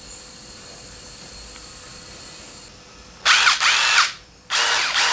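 Brushless DeWalt 18 V cordless impact driver run free with no load in two short trigger pulls, the first about three seconds in. Each time the motor's whine rises in pitch as it spins up and falls as it winds down, without hammering. Before the pulls only a faint steady hiss is heard.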